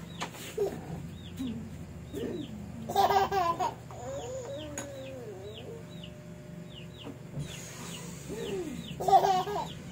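A toddler laughing and babbling in short bursts, loudest about three seconds in and again near the end. Behind it, a steady run of short high chirps, each falling in pitch, repeats about once or twice a second.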